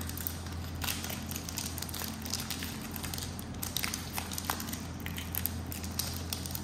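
Foil wrapper of a Pokémon TCG booster pack crinkling and crackling in the hands as it is handled and torn open, with irregular sharp crackles throughout.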